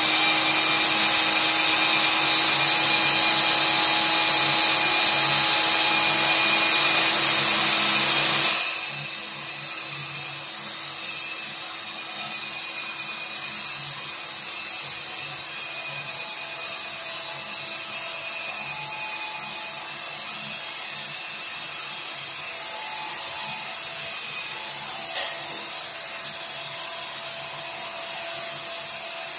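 Electric drill spinning a drain-snake cable inside a sink drain pipe, running steadily with a motor whine. About eight seconds in it turns quieter and lower and keeps running. The cable is being reeled back out of the drain.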